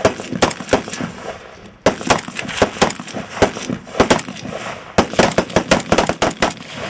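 A rapid string of semi-automatic shots from an AK-pattern rifle, about three to four a second, with short breaks about two seconds in and again about five seconds in.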